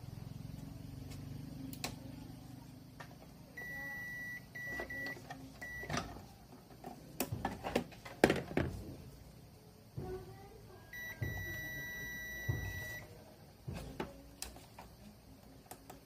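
A digital multimeter's continuity beeper sounding as its probes touch a circuit. It gives a few short, broken beeps, then a single steady beep of about two seconds later on. Between the beeps there are sharp knocks and rattles of the probes and parts being handled, the loudest about halfway through.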